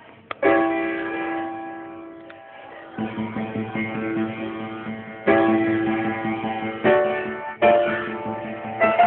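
Piano playing: a chord struck about half a second in and left to ring and fade, then a run of quicker notes from about three seconds in, and fresh chords struck about five, seven and seven and a half seconds in.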